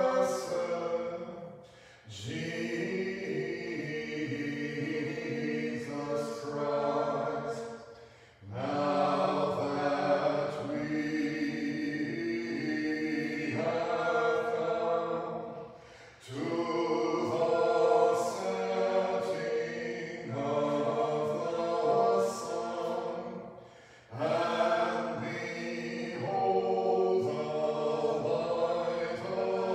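Choir chanting an Orthodox liturgical hymn a cappella, in long phrases with brief breaths between them about every six to eight seconds.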